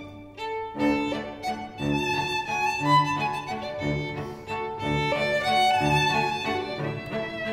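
Instrumental background music with a violin melody over a low note that returns about once a second.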